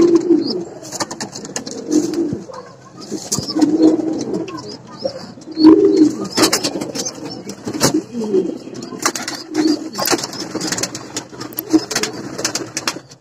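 Male Hungarian pigeon cooing in courtship: a run of low, rolling coos about every second or two. Sharp wing-flap and scuffling noises come in between, more of them in the second half as the pair tussle and mate.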